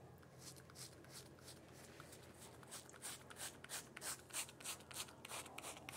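Bulldog five-blade cartridge razor scraping through lathered stubble in short, quick strokes, about three a second, louder in the middle.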